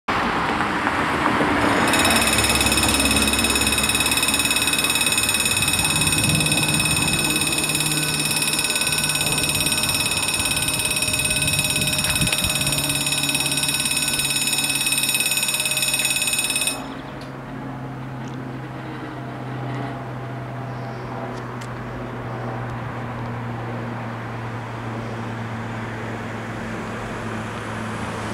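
A car drives over the level crossing, then about two seconds in the crossing's warning bells start, a steady continuous ringing that stops abruptly about two-thirds of the way through, once the barriers are down. A low steady hum remains after the bells stop.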